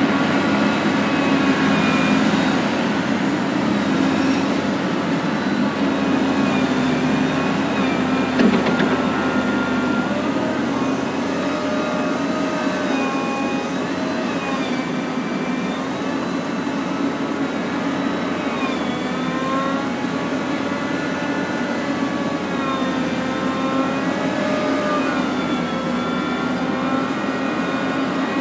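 Liebherr R 984C hydraulic excavator working: its diesel engine runs steadily under load, with hydraulic whines that rise and fall in pitch as the boom, arm and bucket move. A single knock sounds about eight seconds in.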